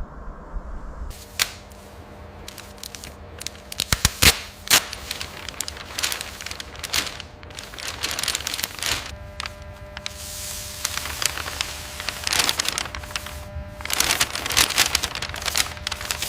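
Car bodywork noises: irregular scraping, clicking and tapping, with short bursts of hiss in the second half.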